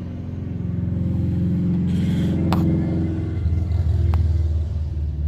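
A car engine running with a low rumble that swells louder through the middle, with two sharp clicks, one about halfway and one near the end.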